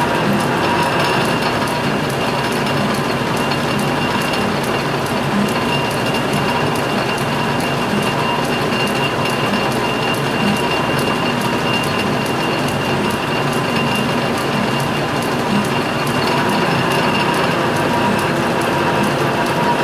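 Metal lathe running under power for a thread-cutting pass in an aluminum rod, a steady gear whine with a regular rapid clicking.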